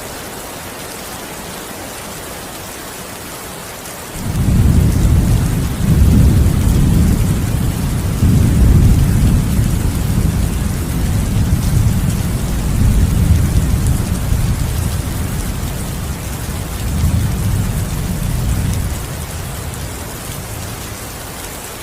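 Steady rain falling, and about four seconds in a long, loud rumble of thunder breaks in suddenly, swelling several times before fading back to the rain about fifteen seconds later.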